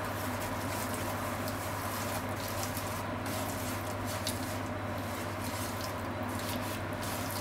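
Ground chicken sizzling in sesame oil in a frying pan while being stirred and broken up with wooden chopsticks, with scattered crackles and taps over a steady low hum.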